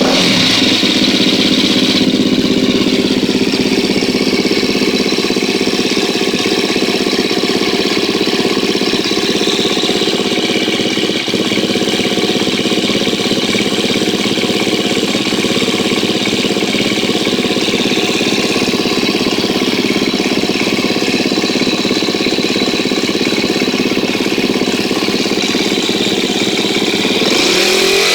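2013 KTM 250 EXC-F's single-cylinder four-stroke engine idling steadily just after starting, with a freshly fitted Dirt Tricks cam chain tensioner; the revs rise briefly near the end. The owner is listening for the earlier cam chain noise and judges the engine to sound pretty good.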